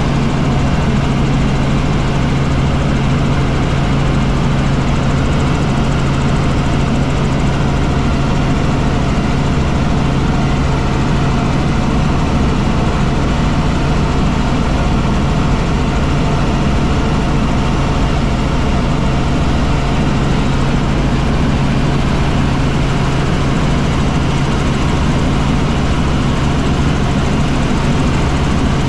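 Helicopter in cruise flight: steady engine and rotor noise with a strong low hum, unchanging throughout.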